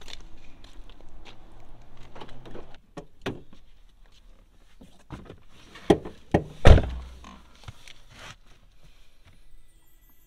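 Someone getting into a car: scattered knocks and rustling, then a few sharp knocks and the car door shut with a heavy thump about two-thirds of the way in.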